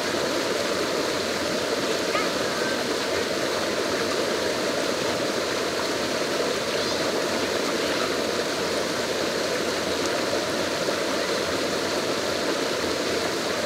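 Small woodland stream rushing over rocks in a short cascade: a steady, even rush of water.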